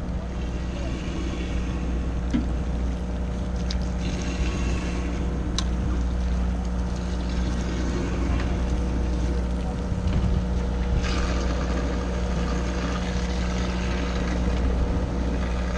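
Steady hum of a fishing boat's engine running, with a hiss over it that grows stronger about eleven seconds in and a couple of light clicks.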